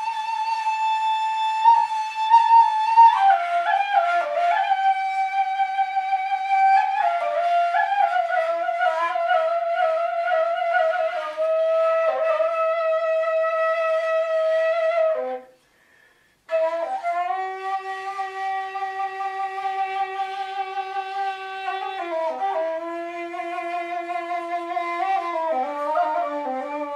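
Background music on a flute-like wind instrument playing a slow melody of long held notes. It stops for about a second midway, then goes on at a lower pitch.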